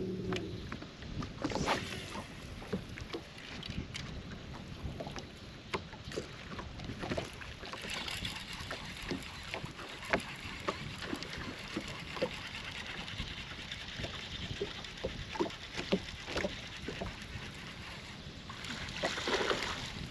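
Baitcasting reel cranking in line against a hooked bass, a steady whir through the middle, over small knocks of water against the boat's hull. A brief rush of noise comes near the end.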